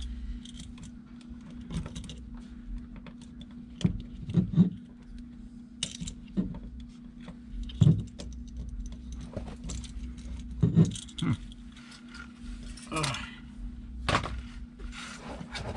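Needle-nose pliers working the wires of a duplex receptacle: irregular metal clicks, taps and rattles as copper wire is hooked around a screw terminal, with a few sharper knocks, over a steady low hum.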